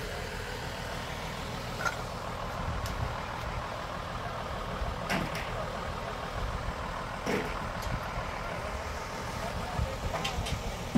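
Steady low outdoor rumble, with a few sharp knocks or taps scattered through it.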